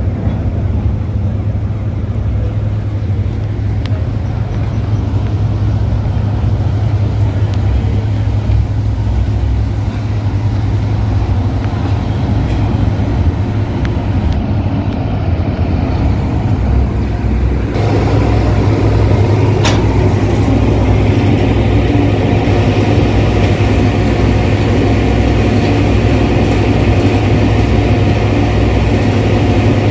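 Tugboat's diesel engine running with a steady low rumble. About eighteen seconds in the engine sound grows louder and fuller.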